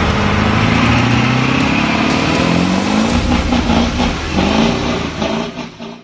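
Motor vehicle engine revving, its pitch climbing and wavering, loud, then fading out near the end.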